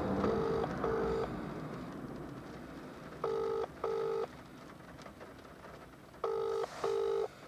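Telephone ringback tone from a mobile phone while a call waits to be answered: three British-style double rings ("brr-brr"), each pair about three seconds after the last.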